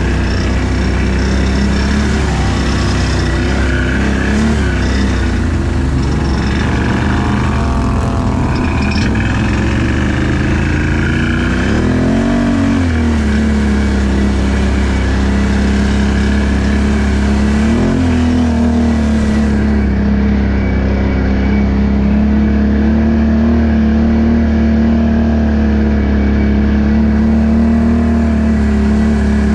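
ATV engine running under way at a fairly steady pace. The revs swell and drop back briefly about twice, near the middle and about two-thirds of the way through.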